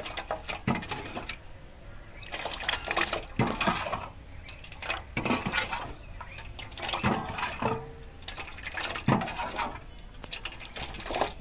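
Thin rice-flour batter for chitoi pitha being scooped with a small cup and poured back into a steel bowl, splashing and trickling in irregular bursts as its runny consistency is shown.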